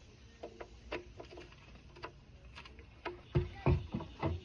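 Light clicks and taps of a plastic tail-light housing and bulb socket being handled during a turn-signal bulb swap, with a run of louder knocks in the last second or so.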